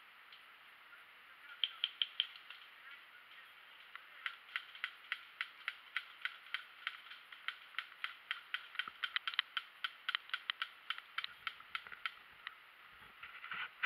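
Airsoft gun firing: a quick burst of four sharp shots about a second and a half in, then a long run of single shots at about four a second that stops near the end.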